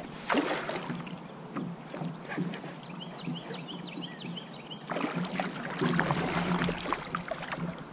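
Water splashing in two bouts, about a second in and again from about five to seven seconds, as a hooked bass is landed, while a bird chirps repeatedly.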